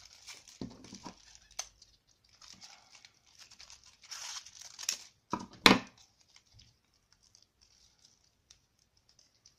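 Aluminium kitchen foil crinkling and crackling as it is crumpled, cut with scissors and wrapped around a wire armature, in on-and-off handling rustles. The loudest is a sharp crunch a little past halfway; after that only faint crackles.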